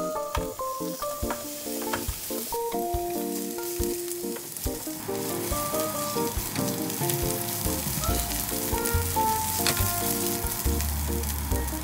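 Sliced onions sizzling in hot oil in a nonstick frying pan, stirred with a spatula; the sizzle builds a couple of seconds in. Background music plays underneath.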